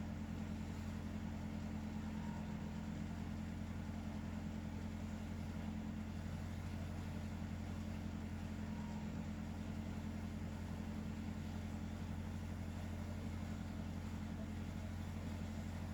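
A steady low hum that does not change, with no rhythm of breathing in it.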